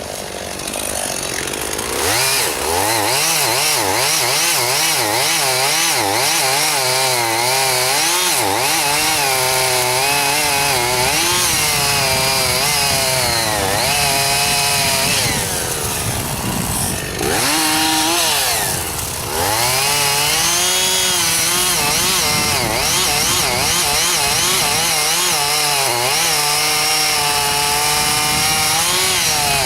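Chainsaw cutting into juniper wood at high revs, its engine pitch wavering up and down under load. It runs slower for about the first two seconds, then comes up to full speed, and drops off briefly twice, about 16 and 19 seconds in.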